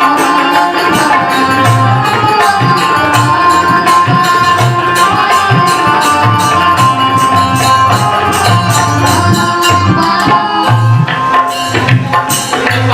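Live stage band playing an instrumental passage: hand drums beating a steady rhythm under a long held high note and other instruments.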